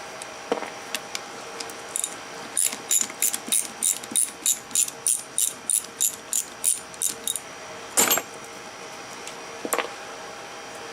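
A ratchet wrench clicking in a quick, even run of about sixteen strokes, backing out the bolts of the Suzuki Samurai steering gearbox's cover plate, followed by one sharp metal knock and a lighter one near the end.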